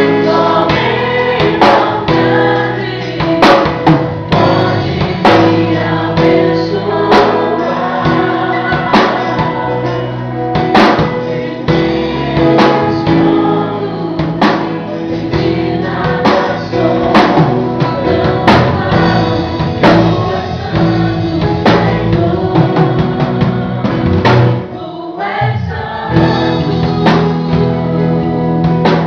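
Gospel worship music: a group of voices singing over a band with drums, with a brief drop in the accompaniment near the end.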